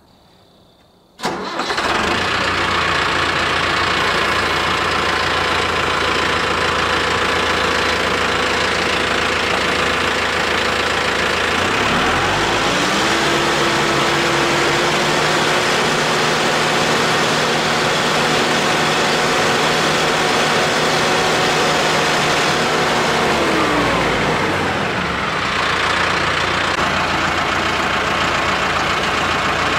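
Mahindra 8560 tractor's diesel engine running under a loader lift, coming in abruptly about a second in. About twelve seconds in it speeds up to a higher steady speed, holds there for around twelve seconds, then drops back.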